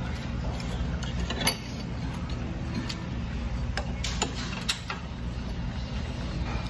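Metal chopsticks and a spoon clicking and clinking now and then against the stew pot and bowls over a steady low hum. The sharpest click comes about a second and a half in.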